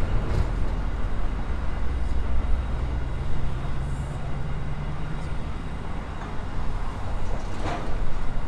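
The last empty flat wagons of a freight train rolling past on the rails, a steady low rumble of wheels on track that eases off about halfway through as the end of the train draws away.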